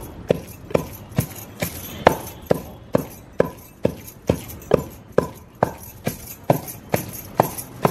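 Steady rhythmic strikes from making roti and chutney by hand, a little over two a second, each a sharp knock with a short ring.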